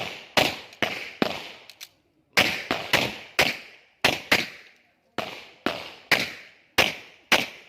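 Several pistols firing in irregular succession, about sixteen sharp shots with short echoing tails, some close together and a brief pause a little over a second in.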